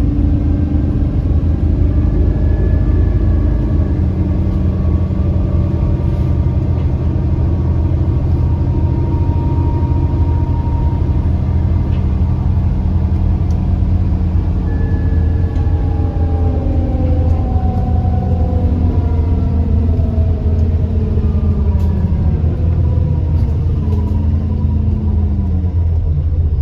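Alexander Dennis Enviro400 MMC double-decker bus under way: a heavy, steady engine rumble with whining tones from the axles and turbocharger that slide up and down in pitch as the bus speeds up and slows. The loud axle whine and turbo whine are signs of a worn-out bus.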